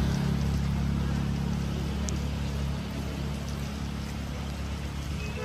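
Rain pouring down in a steady hiss, with a steady low rumble underneath that eases slightly about three seconds in.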